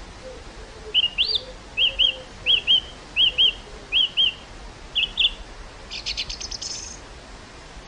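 Birdsong over a steady breeze. One bird repeats pairs of short rising chirps about six times, then a fast dry chattering trill comes near the end, while another bird gives faint low hoots in the first half.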